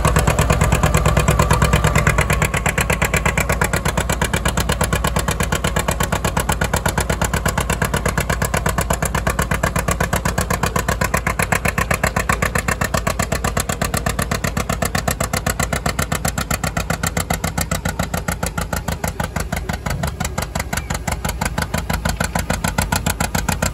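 The two-cylinder engine of a 1959 John Deere 630 tractor is working under full load while pulling a weight-transfer sled, popping in an even, rhythmic beat. It is loudest at the start and eases a little as the pull goes on.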